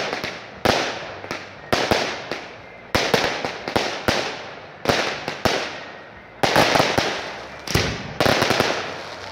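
Aerial fireworks bursting in quick succession: a sharp bang every half second to a second, each trailing off before the next. The bangs bunch up most densely a little after halfway.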